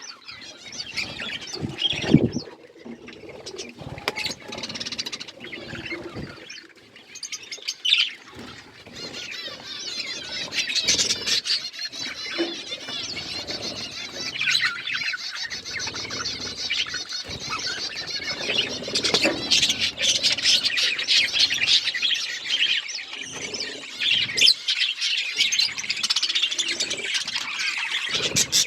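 Pet budgerigars and lovebirds chirping and chattering continuously in high, busy calls, with a couple of louder sudden sounds about two and eight seconds in.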